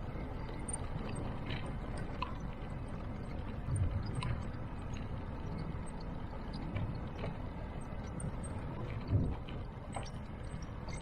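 A scooter on the move: steady low rumble of the ride and wind on the microphone, with scattered light clicks and rattles and a couple of louder bumps, about four and nine seconds in.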